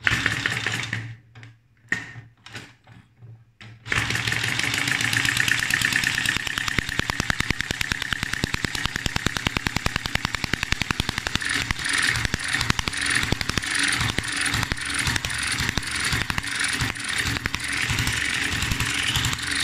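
Model single-cylinder hit-and-miss engine turned over by hand on its flywheel, giving a few irregular pops, then catching about four seconds in and running fast and steadily with rapid firing. From about twelve seconds on, a light regular tick sounds about twice a second over the running.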